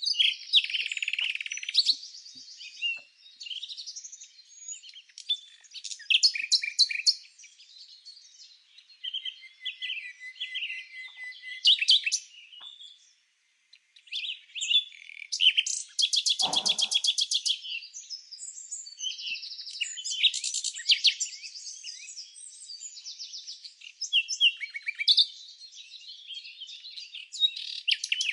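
Several songbirds chirping and singing at once, with quick chirps, short whistled phrases and fast rattling trills.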